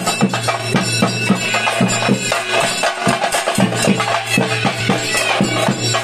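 Chenda drums beaten with sticks in a fast, driving rhythm for a theyyam dance, with sharp strikes over a steady low drone.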